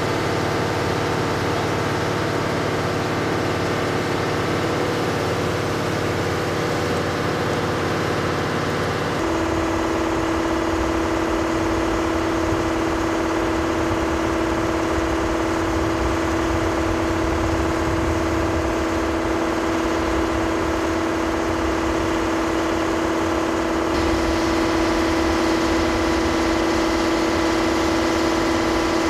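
Generator running with a steady hum and strong held tones. The hum changes abruptly about nine seconds in, shifting to a single stronger mid-pitched tone, and grows slightly brighter near the end.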